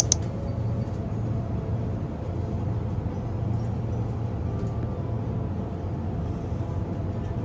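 Steady low hum of a convenience store's background noise, with one short click right at the start.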